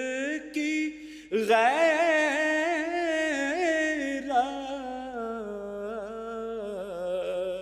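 A man chanting an Urdu nazm solo and unaccompanied, drawing the words out in long melodic phrases with a short break about a second in.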